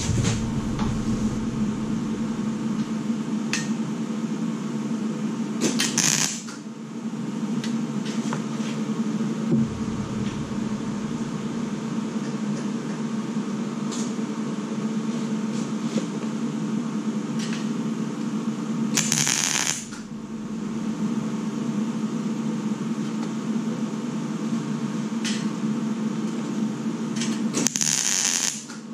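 Electric arc welder striking short tack welds on thin sheet steel: three brief bursts several seconds apart, the last near the end. A steady low machine hum runs underneath.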